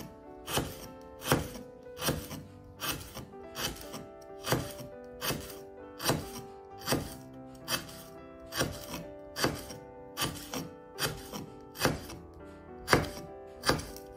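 Chef's knife slicing a lemongrass stalk into thin rounds on a wooden cutting board: steady, sharp chops about two to three a second. Background music with sustained tones runs underneath.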